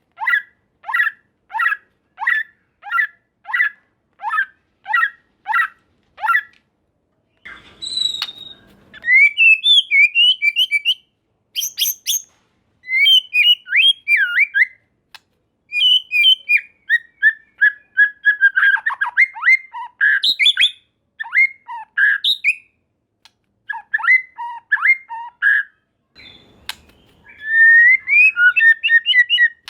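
White-rumped shama calling: a run of short, evenly repeated notes about two a second, then, after a brief rustle, a fast, varied song of whistles, trills and gliding phrases.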